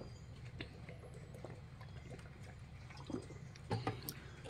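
Light rain beginning to fall: scattered faint drops tapping, with a few louder ones near the end, over a steady low hum.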